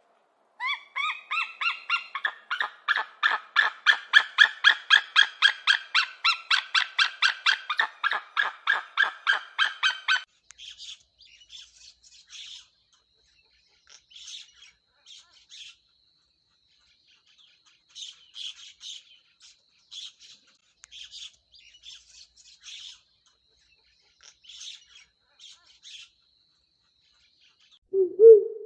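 A bird calling: a fast run of repeated, pitched notes, about five a second, for about ten seconds, followed by faint, scattered chirps.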